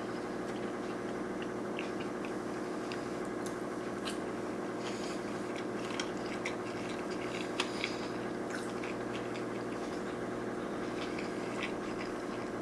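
Close-up chewing of sushi rolls: soft wet mouth clicks and small smacks, a few a little louder. Underneath runs a steady low electrical-sounding hum.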